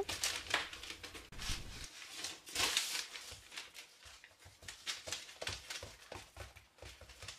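Hands pressing and patting soft pide dough flat on baking paper, with soft irregular pats and rustling of the paper.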